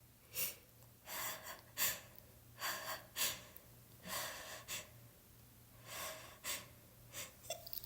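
A person with a head cold taking short, uneven gasping breaths and sniffs, about ten in all, the hitching build-up to the next sneeze.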